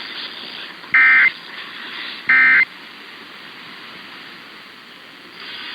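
Emergency Alert System end-of-message data tones: two short, harsh buzzing bursts about a second and a half apart, the last of the three that close the alert, received over AM radio. A faint hiss fills the gaps between and after them.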